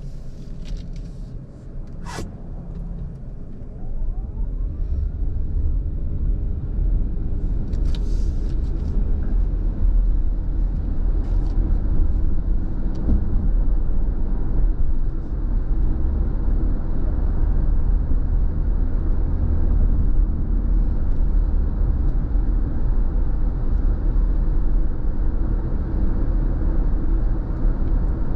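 Car cabin road noise: a steady low rumble of engine and tyres on a wet road, growing louder about four seconds in as the car pulls away and gets up to speed.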